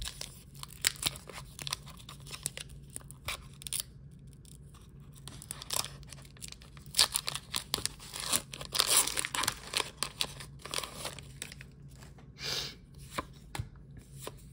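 A Pokémon card booster pack's foil wrapper being torn open and crinkled, in a run of short irregular rips and rustles that are busiest past the middle.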